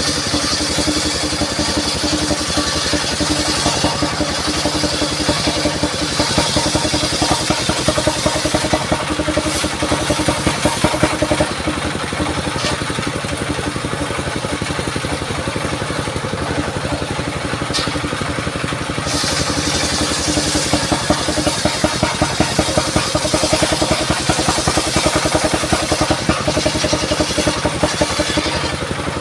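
Engine-driven portable circular saw rig (serkel keliling) running steadily, with a hissing layer on top. The hiss drops away about twelve seconds in and returns some seven seconds later.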